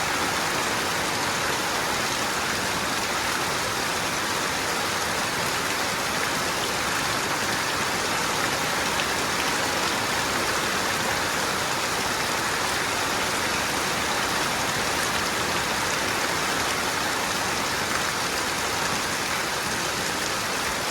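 Steady rain falling on a house roof and running off it.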